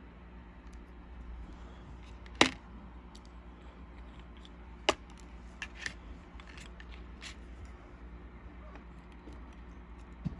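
A few small, sharp clicks and taps as tweezers set tiny brass lock pins into a pin tray and the disassembled lock's parts are handled. The loudest click comes about two and a half seconds in and another about five seconds in, over a low steady hum.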